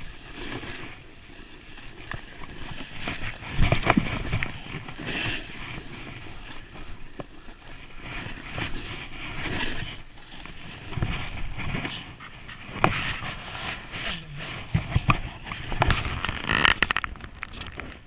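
Snowboard sliding and carving through soft snow in the trees, an uneven hiss and scrape that swells with each turn, with scattered knocks and thumps.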